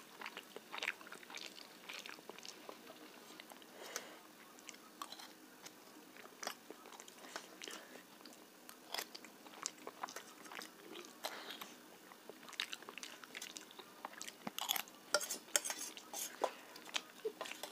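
Quiet chewing and wet mouth sounds of a man eating soft semolina shira, with a steel spoon now and then clicking and scraping on a steel plate. The small clicks come thicker near the end as the spoon gathers the last of the food.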